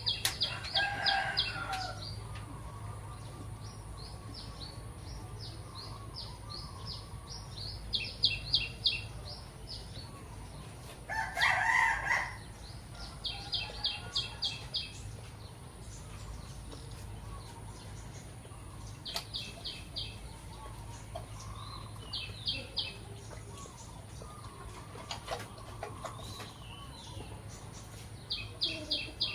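A rooster crowing, loudest about twelve seconds in. Between crows, a high, rapid trill comes in short bursts every few seconds over a steady low hum.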